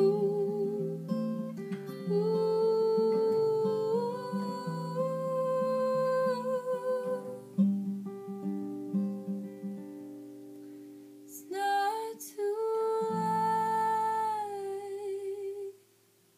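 A woman singing long held notes with vibrato over a capoed acoustic guitar; the song's closing bars, with voice and guitar stopping shortly before the end.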